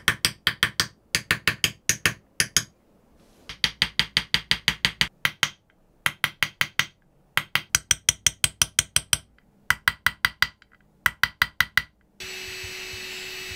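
Small hammer tapping a hand-held steel chisel to engrave a kitchen-knife blade: quick, light metallic taps, about seven a second, in runs of one to two seconds with short pauses. Near the end the tapping gives way to a steady hiss with a low hum.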